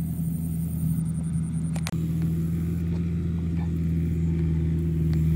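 Kubota M7950DT tractor's diesel engine running steadily while it drives a rotary tiller through the field, with one short click about two seconds in.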